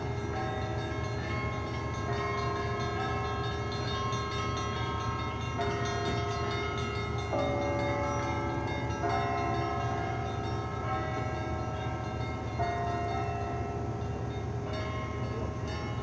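Russian Orthodox church bells ringing. Struck bells sound a new set of long ringing tones every second or two, over busier strikes from smaller bells, with a steady low rumble underneath.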